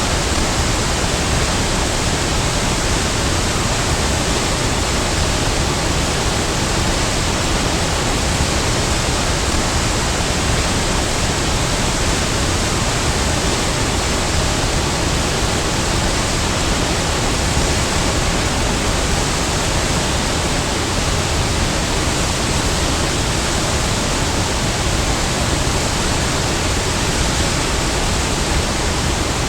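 Big waterfall: a steady, even rush of falling water.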